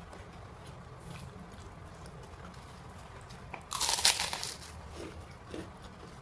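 A person biting into crispy fried food close to the microphone: one loud crunch lasting just under a second past the middle, with faint chewing clicks around it.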